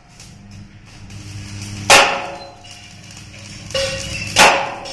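Hammer blows on steel in a welding workshop: two sharp strikes about two and a half seconds apart, each ringing briefly, over a low steady hum.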